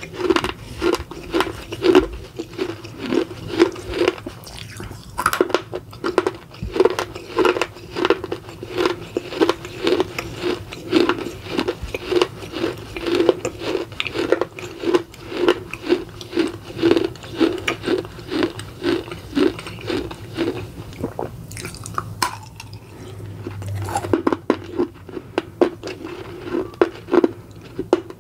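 Close-up crunchy chewing of a bite of a small baked red clay pot (edible clay), at a steady rhythm of about two to three chews a second, with a brief lull about three quarters of the way through.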